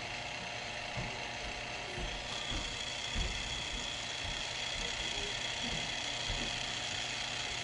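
Conn Stroboconn 6T strobe tuner running: a steady mechanical whir and hum from its drive, with a high steady tone coming in about two seconds in and a few soft knocks.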